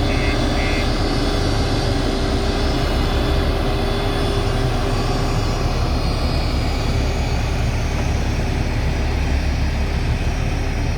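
JCB backhoe loader's diesel engine running steadily under work. A row of short, evenly spaced high beeps stops within the first second.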